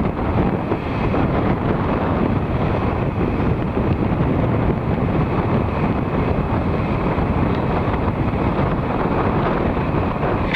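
Steady, loud rushing noise of wind buffeting the microphone outdoors, with no distinct engine tone standing out.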